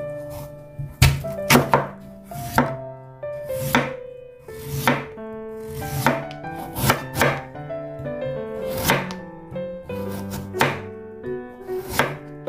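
Chef's knife slicing through a raw Korean radish, each cut ending in a knock on a bamboo cutting board, about one slice a second at an uneven pace, over background music.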